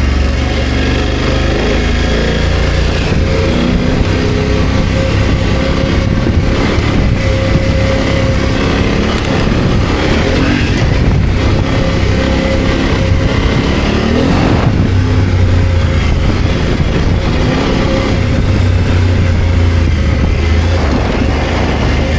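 BMW F900GS parallel-twin engine running under way, its pitch rising and falling as the throttle is opened and closed, with sharper rises and drops about ten and fourteen seconds in.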